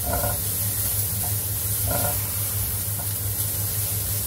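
Diced carrots and onion sizzling in hot oil in a nonstick wok while being stirred with a silicone spatula, with a steady hiss and two short scrapes of the spatula, one at the start and one about two seconds in.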